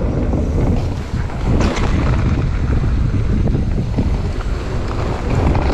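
Wind buffeting the microphone as a downhill mountain bike rolls fast down a trail, with tyre rumble and a few short knocks as the bike rattles over bumps.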